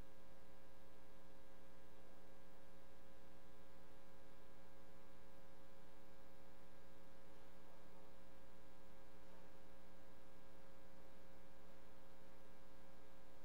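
Steady electrical hum in the open sound feed, several low tones held without change.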